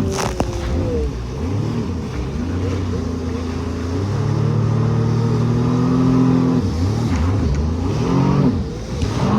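Jet ski engine running under throttle. Its pitch rises and falls over and over, and holds steady for a couple of seconds just past the middle.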